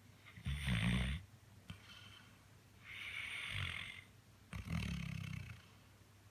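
Chocolate Labrador retriever snoring in its sleep, with a snore that sounds almost human. There are two deep snores about four seconds apart, and a breathy hiss of breath between them.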